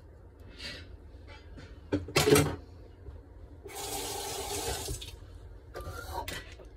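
Water running or pouring for about a second and a half, a little past the middle, as when filling a container. About two seconds in there is a loud double knock.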